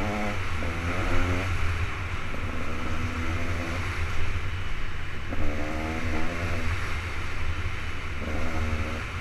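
KTM 200 XC-W's two-stroke single-cylinder engine running under way, its revs rising and falling about four times as the throttle is worked.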